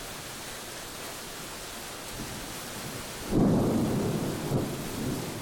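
Steady rain during a thunderstorm, then a loud rumble of thunder breaks in about three seconds in and rolls on, slowly easing off.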